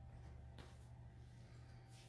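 Near silence: room tone with a faint steady low hum and one soft click about half a second in.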